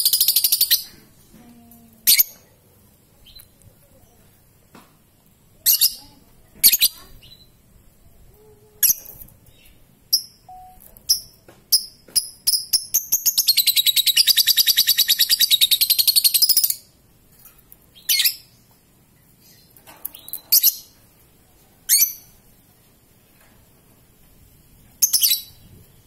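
Young Fischer's lovebird giving short, sharp, high chirps every second or two, and about halfway through a long, rapid rattling trill of some three and a half seconds: the lovebird's 'ngekek' song, the long chatter that keepers train for.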